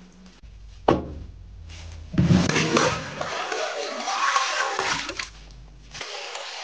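Water gushing and splashing into a stainless steel basin over a slab of lamb ribs, starting about two seconds in and stopping abruptly about a second before the end. A single sharp knock comes about a second in.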